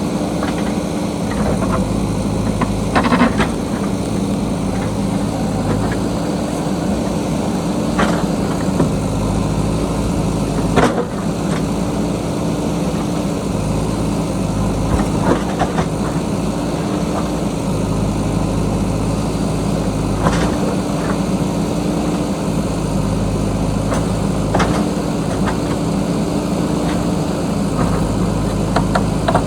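JCB backhoe loader's diesel engine running steadily under working load, its low rumble swelling and easing, with occasional sharp knocks and clanks of the digging gear, about half a dozen across the stretch.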